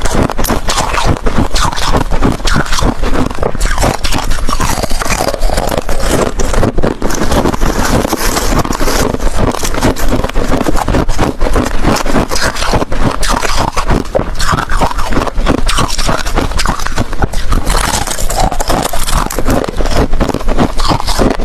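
Close-up crunching of ice cubes being bitten and chewed: a loud, dense run of crackling snaps that goes on without pause.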